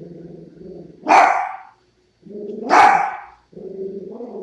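A dachshund barking twice, sharp and loud, about a second in and again near three seconds, with a lower, steadier sound filling the gaps between the barks.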